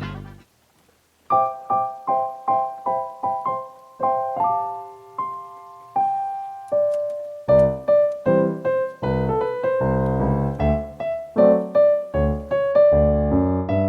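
Background music: a piano or electric piano melody of repeated notes that starts after a brief gap about a second in, joined by a fuller accompaniment with bass about halfway through.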